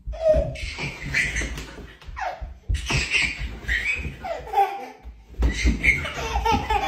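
A toddler laughing and squealing in short bursts, with low thuds underneath.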